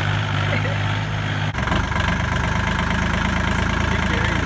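Kubota compact tractor's diesel engine running steadily; the engine note changes abruptly about a second and a half in.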